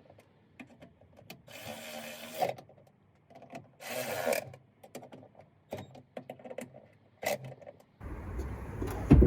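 Hand ratchet clicking in quick strokes as it tightens the bolts on a new liftgate latch, with bursts of fast ratcheting and scattered single clicks. A steady low rumble comes in near the end.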